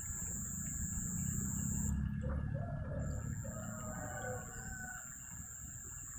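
A rooster crowing faintly, starting about two seconds in and lasting a few seconds, over a low steady rumble.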